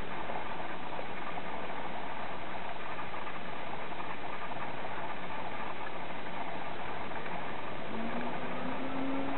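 Steady mechanical running noise, like an engine idling. Near the end a low hum starts and rises slightly in pitch.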